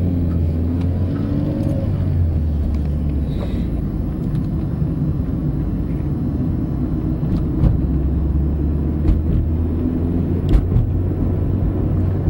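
Steady engine and road rumble heard inside a moving car, with a few short knocks in the second half.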